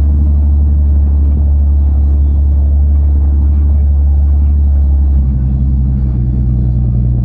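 Car engine running with a steady low drone that steps up to a slightly higher pitch a little over five seconds in.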